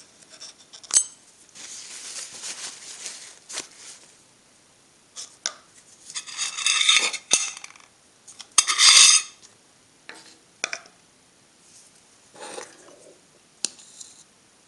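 A metal tool scraping and clinking in a small plastic cup and against a metal tin as Solar Flux powder is added to thicken a paste. Louder scraping comes about six to seven seconds in and again around nine seconds, with sharp clicks in between.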